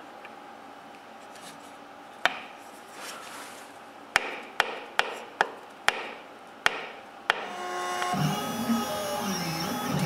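Sharp clicks and knocks of a homemade pen-holder jig being pressed and handled on its wooden block, about seven in the space of five seconds. Near the end an X-Carve CNC machine's drive motors start up, a whirr with gliding tones as the gantry moves.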